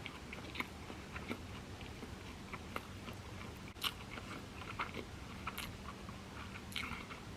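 A person chewing sushi, with faint, irregular wet mouth clicks and smacks and a few louder ones, over a faint steady low hum.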